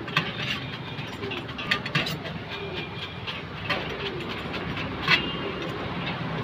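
Metal tongs and a steel blade clinking, tapping and scraping on a steel shawarma tray as shaved chicken is chopped and turned: irregular sharp clicks, the loudest about two and five seconds in, over a steady hum.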